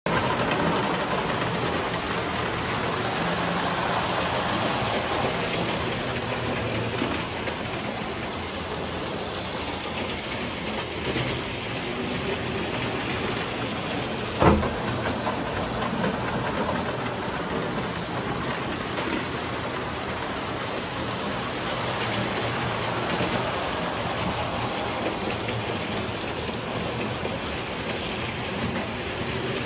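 Tinplate toy electric train running on the layout's track, a steady mechanical running noise, with one sharp click about halfway through.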